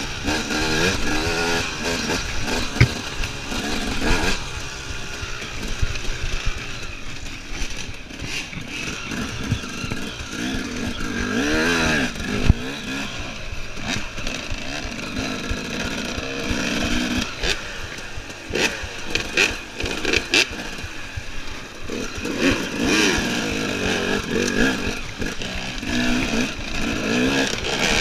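KTM EXC enduro motorcycle engine being ridden hard on a dirt race lap, revving up and dropping back over and over, with a couple of sharp knocks.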